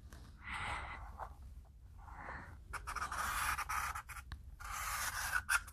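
Felt-tip markers drawing on paper, several separate strokes of up to about a second each.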